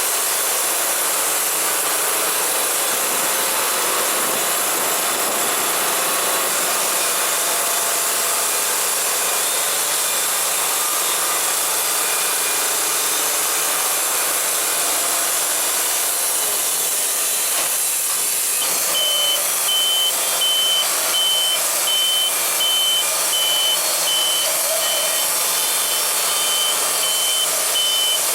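Wood-Mizer LT70 band sawmill running with a steady machine noise and high hiss. About two-thirds of the way in, a reversing alarm starts beeping at an even on-off pace over it.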